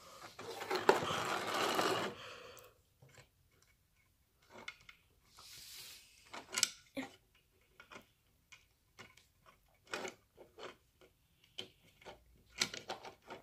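Rustling close to the microphone for about two seconds, then scattered light clicks and taps of small plastic toy playset pieces being handled.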